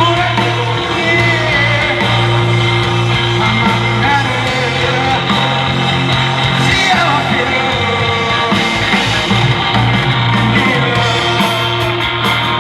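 Live rock band playing: a singing voice and electric guitar over bass and drums, with quick cymbal strokes near the end.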